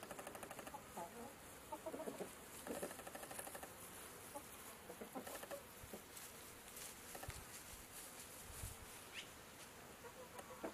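Domestic chickens clucking in short, soft runs of quick notes, busiest in the first few seconds and sparser after.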